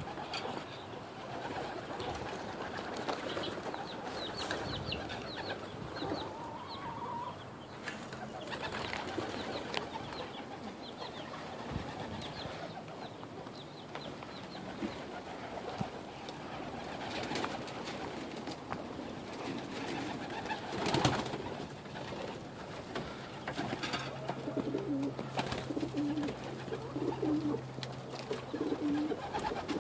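Domestic pigeons cooing, with low repeated coo notes coming more often toward the end, and one sharp knock about two-thirds of the way through.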